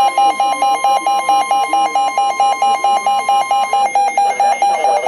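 Weather radio alert: an electronic alarm beeping about three times a second over the steady NOAA Weather Radio warning tone, which cuts off a little before the end. The alert announces an incoming warning, here a tornado warning.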